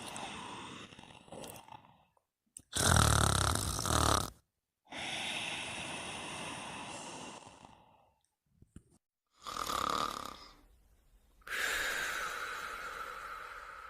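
Snoring in sleep: slow breaths with pauses between them. The loudest is a deep, rumbling snore about three seconds in.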